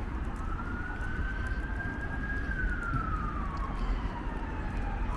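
Emergency vehicle siren on a slow wail: the pitch rises over the first couple of seconds, falls steadily for the next two and a half, then sweeps back up near the end, over a low rumble.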